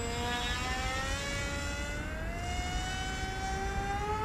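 Electric pusher motor and propeller of an RC FPV foam plane whining in flight, its pitch slowly rising, over a low rumble.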